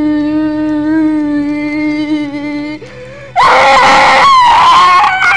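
A boy's voice making monster roars and screams for a toy dragon fight: one long, even-pitched cry, then a loud, rough scream about three and a half seconds in, running into a high-pitched held yell near the end.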